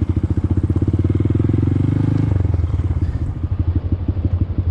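Honda Grom's single-cylinder four-stroke engine running with an even, rapid beat; a little over two seconds in, its note drops and the beat slows as the throttle comes off.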